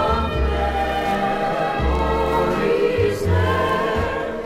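Music: a mid-1960s country steel guitar instrumental, the steel guitar holding long melody notes that slide up in pitch, over a bass line that changes note every second or so.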